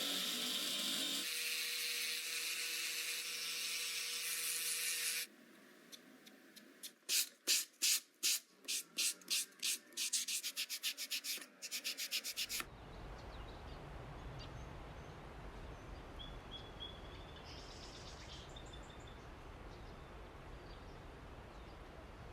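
A steady whir with a low hum cuts off suddenly about five seconds in. A run of rhythmic rubbing strokes follows, speeding up toward the end, then a quiet steady background with a few faint bird chirps.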